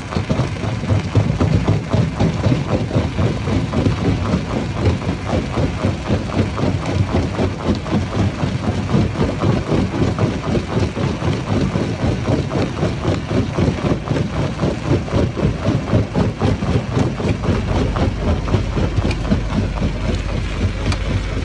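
Stone crusher plant machinery running: a heavy, steady mechanical din with an even pulsing of about two to three beats a second.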